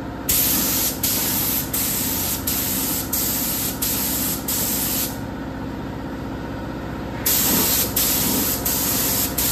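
Gravity-feed air spray gun spraying clear coat: a loud hiss of compressed air and atomised paint, with brief dips a little more than twice a second as the passes go on. The hiss stops for about two seconds around the middle, then the passes resume.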